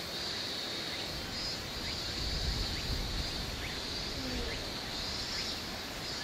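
Outdoor ambience with a steady high-pitched insect drone, joined by a low rumble near the middle.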